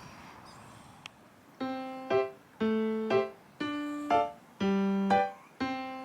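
Background music begins about a second and a half in: a keyboard plays a repeating pattern of notes about once a second, each a lower note answered by a higher one. Before it there is only faint background noise.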